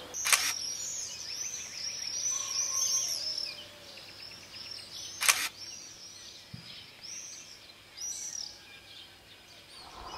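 Two shutter releases of a DSLR camera, about five seconds apart, with birds chirping over and over in quick high notes, densest in the first few seconds.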